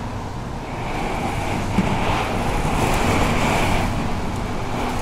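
Storm wind from an approaching hurricane, heard through a glass door as a steady rushing noise that swells about a second in.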